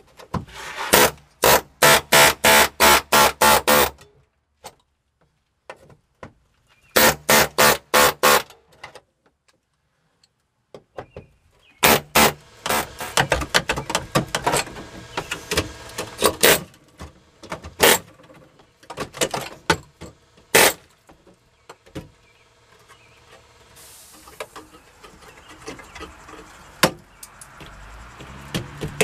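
Pneumatic air chisel hammering into the rusted sheet-metal floor pan of a Jeep Cherokee XJ to break out the spot welds, in rapid runs of strokes with pauses between them. These give way to irregular clanking and scraping as the loosened rusty floor metal is worked free.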